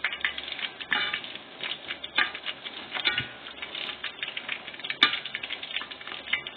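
Meatballs frying in a deep pot of hot oil, crackling and spitting irregularly, with one sharp click about five seconds in.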